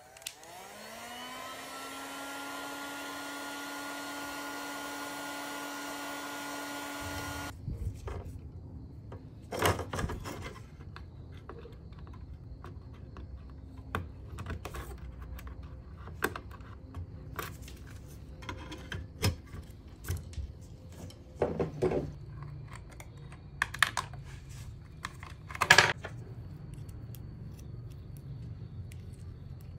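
A handheld electric blower tool spins up with a rising whine and runs steadily with a rush of air for about seven seconds, then cuts off suddenly. After it come scattered clicks and sharp knocks of plastic and metal as a computer case fan is handled and fitted into a steel desktop case.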